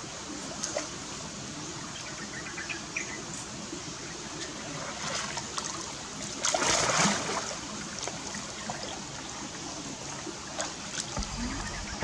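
Stream water trickling and flowing steadily, with scattered small clicks and a brief louder burst about halfway through.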